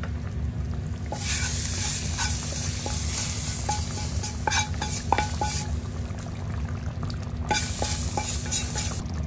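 Hot tempering of shallots, curry leaves and chilies fried in oil sizzling as it is poured and scraped from a small pan into a pot of fish curry, with a utensil clicking and scraping against the pan. The sizzle starts about a second in, dies down midway, and flares up again near the end.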